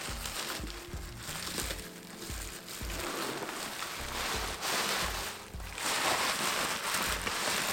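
Bubble wrap crinkling and rustling as wooden rims are pulled out of it, growing louder about three seconds in and again near the end. Background music with a steady bass beat plays under it.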